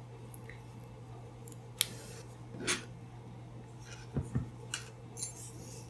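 Small clicks and taps of a metal crochet hook and stitch marker being handled while crocheting yarn, about five to six light clicks spread through the second half, over a faint low steady hum.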